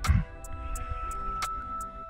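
Background music with held tones and a steady ticking beat. A short low thump sounds right at the start.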